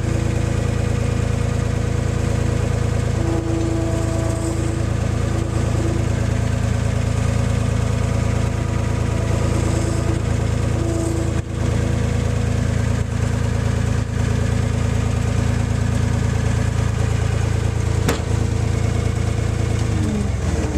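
Skid loader engine idling steadily, then shut off near the end, its pitch sinking as it winds down.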